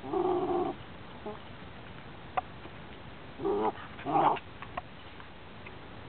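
A young Cairn Terrier whining in three short, pitched whimpers: one right at the start and two close together about three and a half seconds in, with a few faint clicks between.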